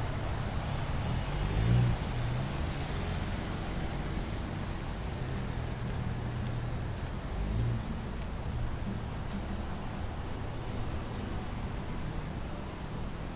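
City street traffic: a steady low rumble of cars and other vehicles passing, with one passing louder about two seconds in and another near eight seconds.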